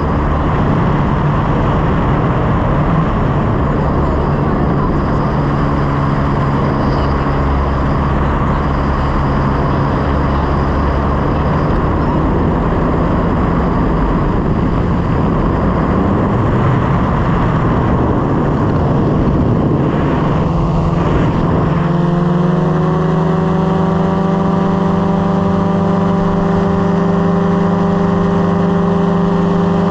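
Light aircraft's piston engine and propeller running loudly and steadily. About twenty-one seconds in, the pitch rises slightly and holds an even note.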